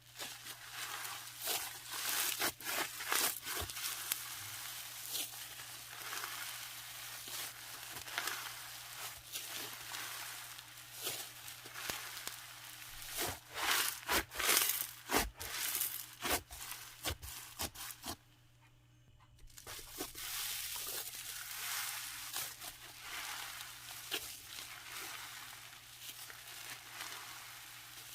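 Crunchy snow slime being squeezed and kneaded by hand, giving dense crisp crackles and crunches with a short pause about two-thirds of the way through.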